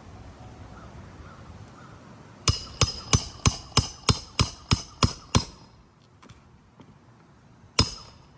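A hammer driving roofing nails into shingles: a run of about ten quick, evenly spaced ringing strikes, roughly three a second, then a single strike near the end.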